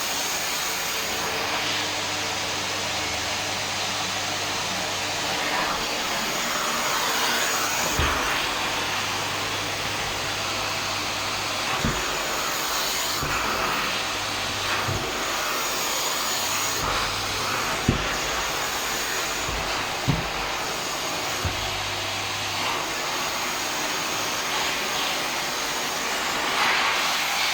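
Electric vacuum cleaner running steadily, with a few short, dull knocks scattered through.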